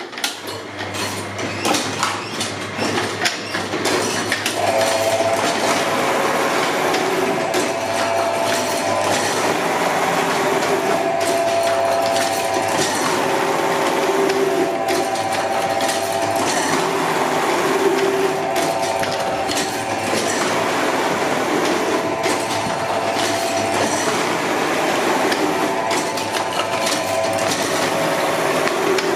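Machine for rolling paper tubes for firework shells, running with a steady rhythmic clatter over a low motor hum. From a few seconds in, a whine comes and goes every couple of seconds.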